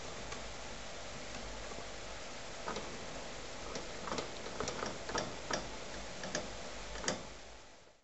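Light irregular clicks and taps of a young budgie clambering on a perch and cage wire, several a second, over a steady hiss that fades out near the end.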